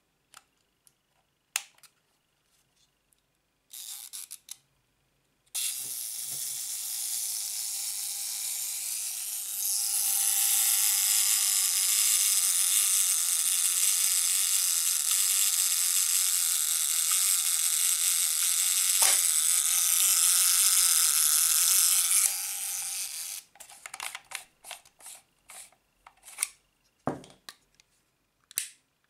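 Zorki 4 rangefinder camera's clockwork self-timer buzzing steadily for about seventeen seconds, growing louder a few seconds in, then cutting off. Small mechanical clicks of the camera's knobs and shutter come before and after it.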